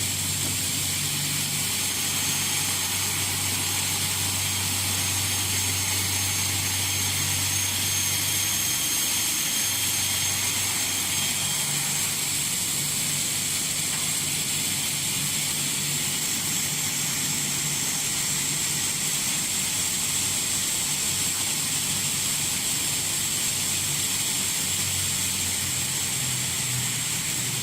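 Double-head aluminium cutting saw running with both heads at once: a steady high-pitched hiss and whine from the spinning blades and motors, with a low hum that fades out about nine seconds in and returns near the end.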